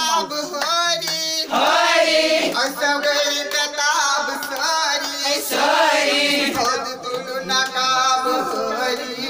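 A group of voices singing together in chorus without instruments, lines overlapping and repeating like a chant.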